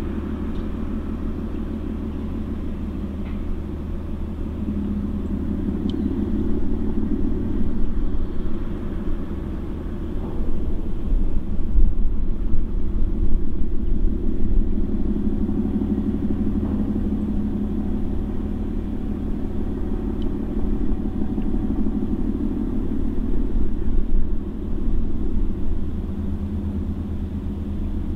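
Steady low rumble of the cargo ship's diesel machinery running as it comes in to berth, swelling a little a few times.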